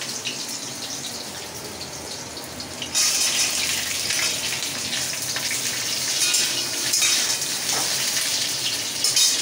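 Potato pieces sizzling in hot oil in a steel wok on a gas stove, a steady hiss that grows louder about three seconds in.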